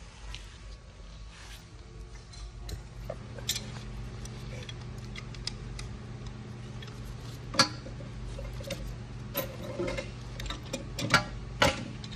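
Scattered sharp clicks and knocks of hard plastic being handled as the nut under a toilet tank is loosened to remove the fill valve.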